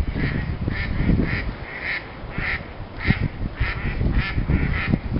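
Ducks on a pond quacking over and over, about two calls a second, over a low rumble.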